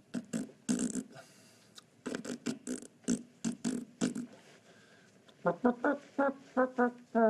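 A man making mouth noises: a quick run of pops and smacks, then about a second and a half of short, pitched, horn-like toots.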